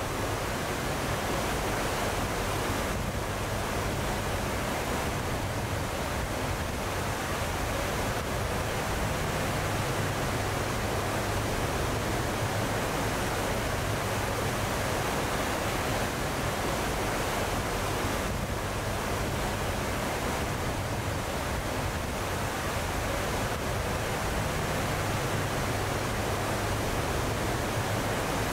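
Steady rushing of wind and churning wake water behind a moving cruise ship, with a faint low hum underneath.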